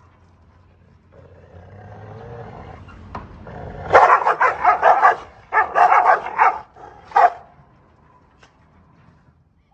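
A dog growls low, then barks in two quick runs from about four seconds in, with one more bark about a second later.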